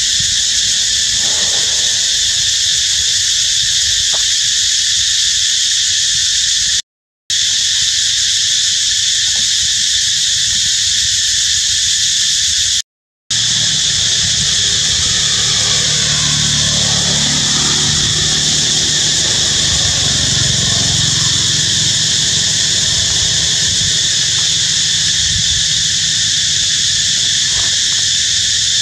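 A loud, steady, high-pitched chorus of insects. A low rumble joins about halfway through, and the sound cuts out briefly twice.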